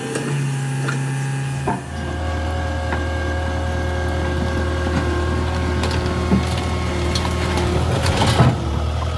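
Skid steer engine running under work while wood cracks and splinters. The engine gets louder about two seconds in, and a sharper crack comes shortly before the end.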